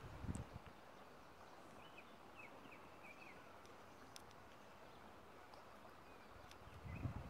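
Near silence outdoors: a faint even hiss of open air with a few faint, short bird chirps in the middle, and a few low bumps just after the start and again near the end.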